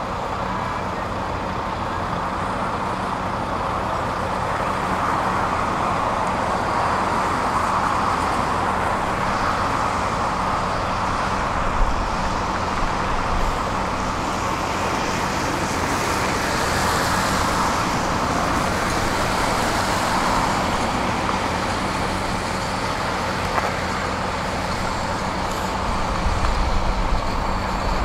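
Heavy diesel construction machinery, truck and tracked excavator, running steadily. The sound swells a little at times and carries a few short knocks.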